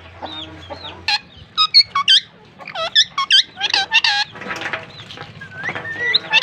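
A pair of Indian ringneck parakeets chirping and calling back and forth in quick, sharp, squeaky calls that bend up and down in pitch. Softer calls open, then loud flurries come about a second in and again around three to four seconds.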